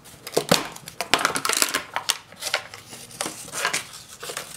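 Cardboard and plastic rustling and clicking as a cocoa powder container is picked up and opened: a quick run of clicks and scrapes, busiest in the first two seconds.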